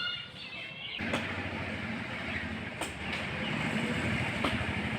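A steady mechanical rumble starts about a second in, with a sharp knock roughly every second and a half.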